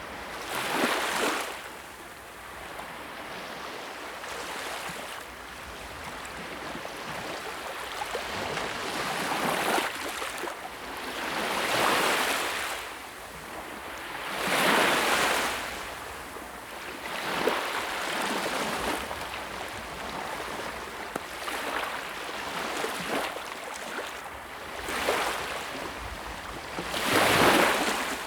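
Sea waves breaking and washing ashore in an unbroken rush of surf, swelling into a louder break every few seconds, the strongest about a second in, midway and near the end.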